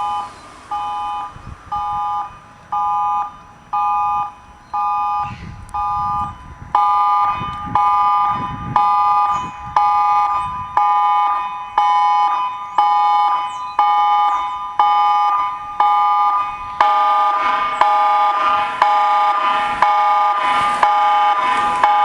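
Electronic emergency alert tone: a chord of three steady tones beeping about once a second. It grows fuller and louder as more layers join, about seven seconds in and again about seventeen seconds in.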